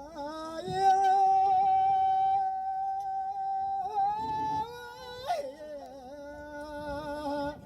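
A person's voice humming or singing long held notes: one note held for about three seconds, a shift about four seconds in, then a lower note held until near the end.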